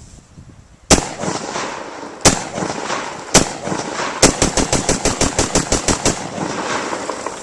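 Newly built AR-15 pistol test-fired: three single shots a second or so apart, then a fast string of about a dozen shots in under two seconds, each followed by a short echo. It cycles every round without a stoppage.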